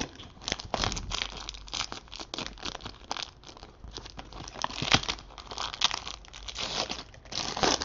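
Foil wrapper of a Panini Court Kings trading-card box topper crinkling and tearing as it is opened by hand, with dense irregular crackles and a sharper one about five seconds in.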